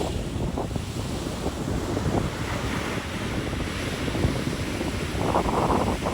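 Ocean surf washing ashore, mixed with wind buffeting the microphone in irregular low gusts. A stronger gust or wash comes about five seconds in.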